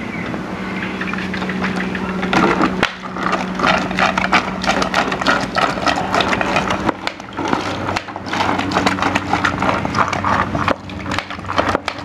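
Water poured from a plastic bottle splashing onto watermelon seedlings and the soil in their cups inside a plastic tray, a dense irregular crackle of drops and splashes. A steady low hum runs underneath for the first half.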